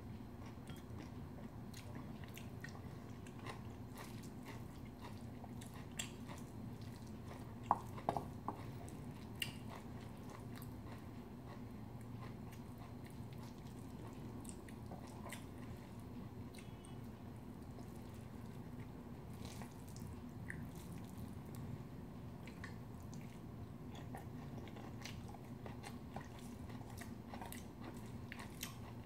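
Close-up eating sounds: chewing mouthfuls of bibimbap, with a spoon scraping and clinking in a stainless steel bowl. A few sharper, ringing clinks come about eight seconds in, over a steady low hum.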